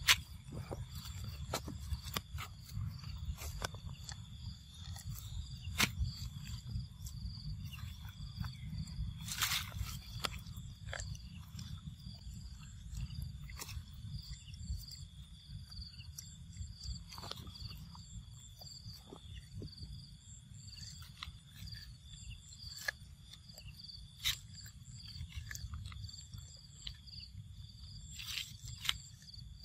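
Outdoor ambience: insects chirring steadily in several high tones over a low, continuous rumble, with scattered small clicks and rustles, the loudest a brief crackle about ten seconds in.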